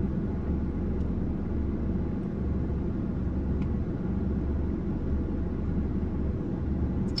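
Car engine idling steadily, a low rumble heard from inside the cabin.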